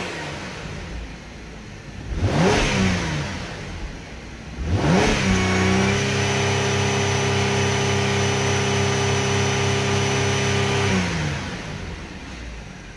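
2008 Holden Commodore's 3.6-litre V6 free-revving in park, heard from inside the cabin. There is a quick blip about two and a half seconds in. About five seconds in the revs climb to around 4,000 rpm and are held steady for some six seconds, then drop back toward idle near the end.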